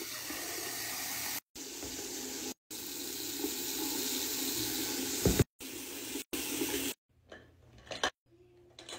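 Water running from a bathroom tap into a drinking glass held under it, steady but chopped into short pieces by abrupt gaps. There is a short knock a little after five seconds in. Near the end the water stops, leaving only a few faint clicks.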